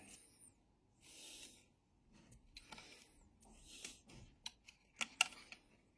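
Faint handling noises with a few short sharp clicks, the loudest a cluster near the end: plastic wiring connectors being unplugged from an e-scooter battery's protection board.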